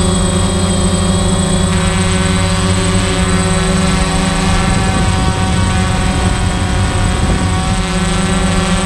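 Parrot Bebop quadcopter's propellers and motors whirring in flight, a steady many-toned buzz that shifts slightly in pitch as the drone manoeuvres.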